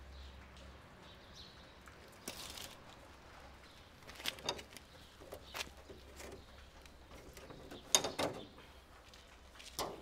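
A few scattered clicks and knocks from a car's bonnet latch and bonnet being handled, the loudest a sharp knock about eight seconds in.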